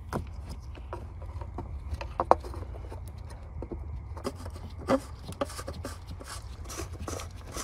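Scattered clicks, taps and scrapes of a gloved hand handling parts in a car's engine bay, with two sharper knocks about two and five seconds in, over a steady low hum.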